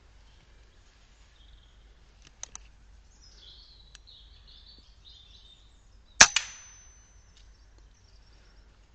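A single air rifle shot about six seconds in: one sharp crack with a smaller second crack a fraction of a second after. Before it, birds chirp faintly and there are a couple of small clicks.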